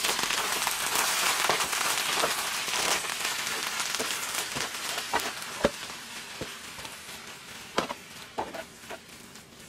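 Sauerkraut with mushrooms and onions frying in butter in a skillet: a steady crackling sizzle that slowly fades, with a few sharp clicks of metal tongs against the pan as the kraut is stirred and turned.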